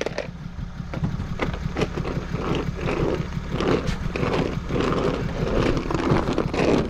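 Broom sweeping a floor in repeated strokes, about two a second, over a steady low hum.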